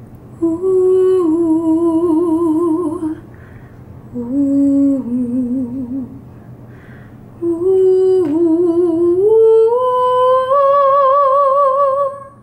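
A woman humming a wordless a cappella melody in three phrases with vibrato; the third phrase climbs step by step and is held until near the end.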